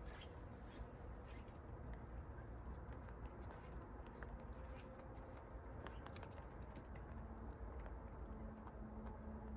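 Faint scattered light clicks and scuffs of rabbits shifting about on a wire-mesh hutch floor, over a steady low rumble.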